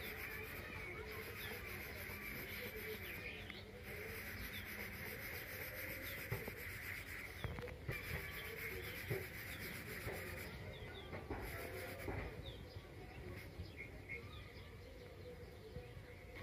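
Graphite pencil rubbing and scratching on paper as overlapping circles are scribbled, with faint bird chirps in the background.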